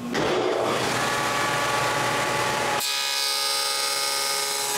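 Table saw with a dado stack running and cutting finger-joint slots in a wooden board, a steady whine with a hiss; the sound changes abruptly about three seconds in, turning higher and thinner.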